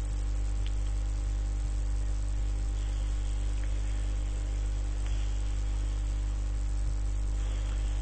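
Steady low electrical hum with a faint hiss under it: the recording's background noise, with no other sound.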